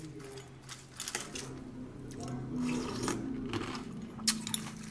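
Metal spoon clinking and scraping in a glass bowl of crushed ice, blueberries and coconut as it is scooped and eaten, with a sharp clink about four and a half seconds in.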